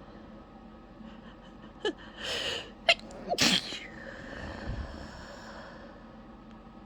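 A woman sneezing: a gasping in-breath, then a sharp sneeze just under three seconds in and a louder, longer voiced one half a second later, followed by breathing.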